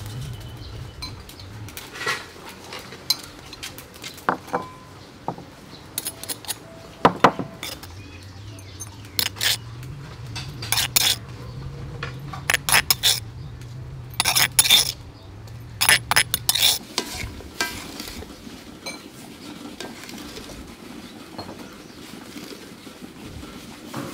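Metal spoon clinking and scraping against a glass bowl and a stone mortar while ground powder is scooped out. The clinks come in quick clusters, most of them in the middle of the stretch.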